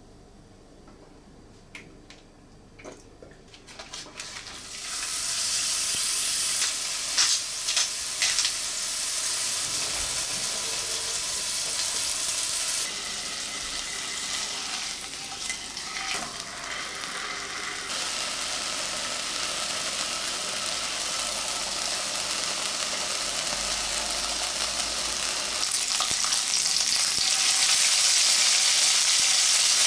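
Beef burger patty frying in oil in a nonstick pan: a steady sizzle that starts about four seconds in after a few faint clicks, with a few sharp pops soon after. Near the end, with bacon strips frying beside the patty, the sizzle is louder.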